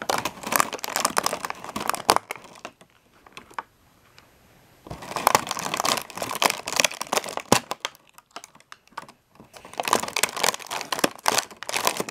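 Thin clear plastic toy packaging crinkling and crackling as small toy figures are pulled out of it, in three bouts with short pauses between.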